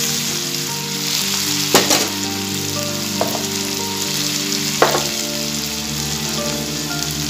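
Sliced onions and ginger-garlic paste sizzling steadily in hot mustard oil in a metal kadai, stirred with a spatula that scrapes the pan three times, about two, three and five seconds in.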